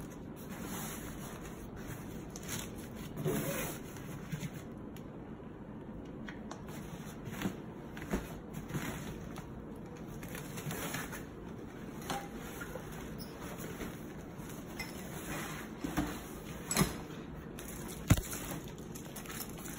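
Collapsible fabric storage box being handled and unfolded: the stiff fabric panels rustle and scrape, with a few short sharp knocks, the loudest two near the end.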